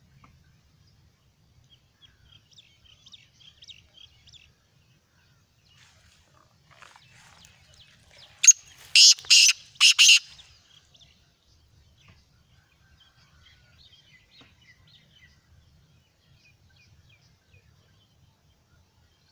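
Black francolin calling once, about eight seconds in: a short loud burst of four sharp notes over about a second and a half. Faint chirping of small birds comes before and after.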